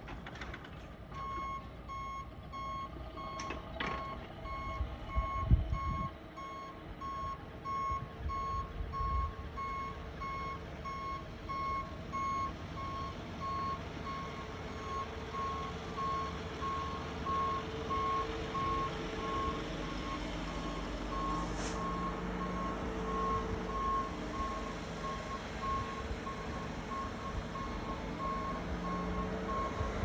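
Snowplow truck's backup alarm beeping in a steady repeating pattern as it reverses, over the low running of its engine. A few low thumps come about five and nine seconds in.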